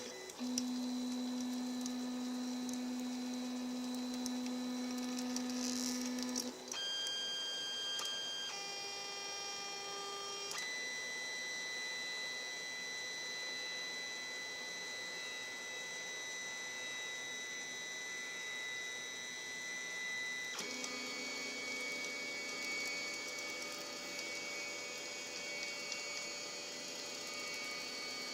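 3D printer's stepper motors running, a steady whine made of several held tones that jumps abruptly to new pitches a few times as the moves change.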